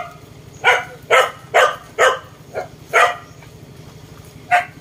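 A dog barking in a run of short, sharp barks, about two a second, then a pause and one more bark near the end.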